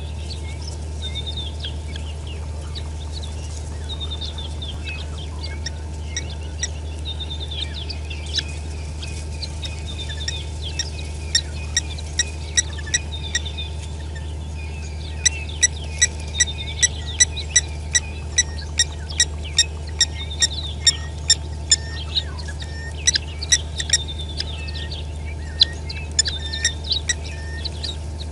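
Flock of helmeted guineafowl calling: scattered chirps at first, then a long run of sharp, repeated calls about two a second that begins about a third of the way in and carries on nearly to the end.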